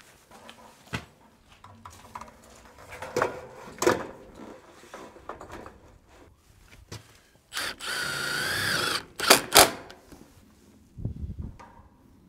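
A power drill runs for about a second and a half, its whir dipping in pitch partway through as it comes under load, driving a fastener into steel trim. Light taps and rattles of the trim being handled come before it, and two sharp knocks follow right after.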